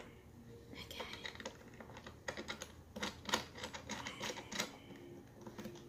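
Hands working screws and fittings into a hard plastic portable shampoo bowl: irregular light clicks and taps of plastic and small metal parts.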